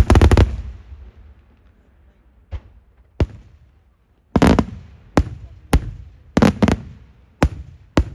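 Daytime fireworks shells bursting in loud sharp bangs at irregular intervals, each with a short echoing tail. A heavy burst opens it, then two lone bangs, then a quicker string of bangs from about halfway on.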